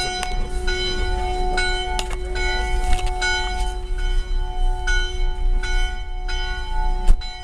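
Church bells tolling, a strike about every half second, each ringing on into the next, over a steady low rumble. Heard at a funeral, this is the funeral toll.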